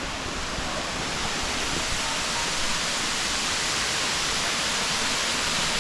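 Empress Falls, a waterfall pouring into its plunge pool, making a steady, even rush of falling water.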